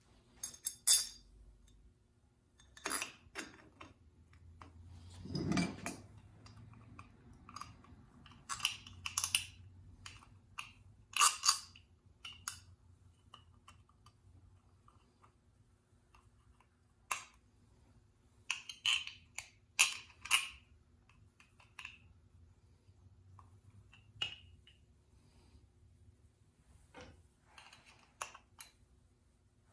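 Small metal and plastic chainsaw parts clicking and clinking against each other and a metal workbench as they are handled and fitted by hand, with one duller knock about five seconds in. A faint steady hum runs underneath.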